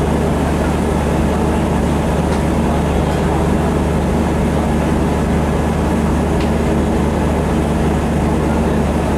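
Steady drone of diesel engines idling on two passenger trains standing side by side, with a couple of faint clicks.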